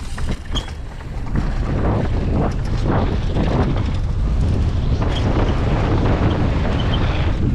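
Wind buffeting the microphone of a mountain biker's action camera while riding, with a few short clicks at the start; the rush grows louder about a second and a half in and then holds steady.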